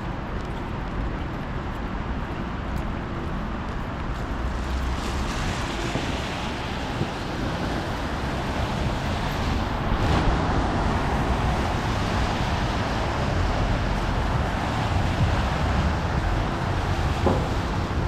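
Rainy city street noise: traffic passing on wet pavement under a steady hiss of rain. It grows louder from about four seconds in, with a brief swell about ten seconds in, like a vehicle going by.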